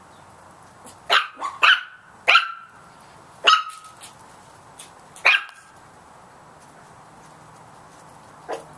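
Chihuahua puppy barking at a cat: about six short, high barks in quick succession over the first five seconds or so, then a single bark near the end.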